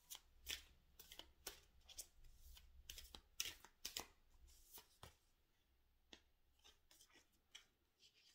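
A deck of oracle cards being shuffled by hand, faint: a run of soft card snaps and flicks, thick over the first five seconds and thinning to a few scattered ones toward the end.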